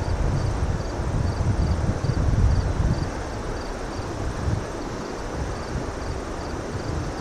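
Wind buffeting the microphone as a low rumble, heavier in the first half, with an insect chirping steadily and faintly in the background at about two to three chirps a second.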